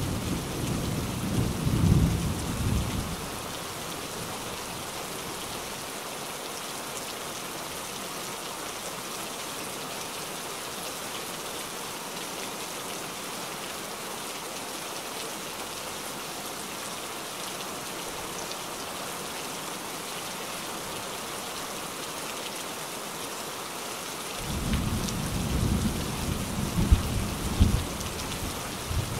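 Steady rain hissing down, with low rumbles of thunder in the first three seconds and again from about 24 seconds in to near the end.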